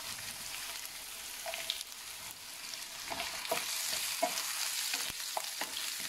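Chopped onion, garlic, dried red chillies and panch phoron sizzling in hot olive oil in a nonstick frying pan, frying a tadka. From about three seconds in, a wooden spatula stirs them, scraping and tapping on the pan.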